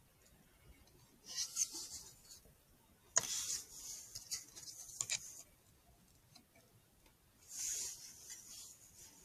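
Close rubbing and scraping of hands or gear handling a rifle with a night-vision riflescope, heard through the scope's built-in microphone. It comes in three short bursts, with sharp clicks about three and five seconds in.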